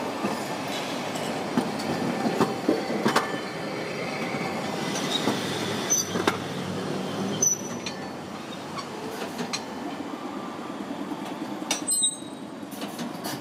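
Sapporo streetcar rolling slowly past over track switches, its wheels knocking over the rail joints and points, with a few short high-pitched wheel squeals.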